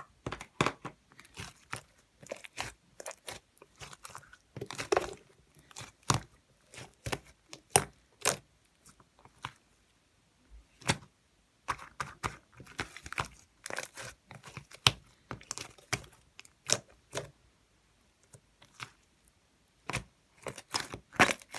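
Homemade slime being worked by hand: an irregular run of sharp clicks, pops and crackles, with a short pause about halfway through.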